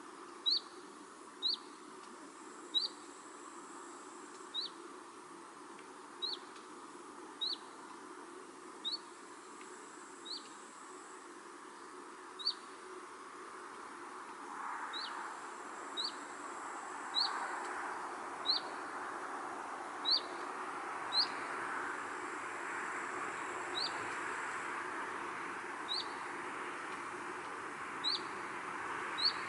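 A single bird repeating one short, high chirp every second or two, over a soft rushing breeze that grows a little louder about halfway through.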